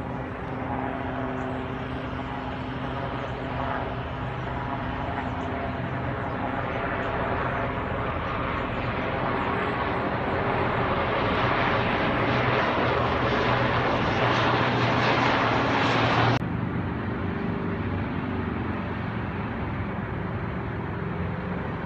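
Military helicopter flying past: a steady drone with several held tones that grows louder and fuller as it comes nearer. About sixteen seconds in, the higher part of the sound cuts off suddenly, leaving a lower, fainter drone.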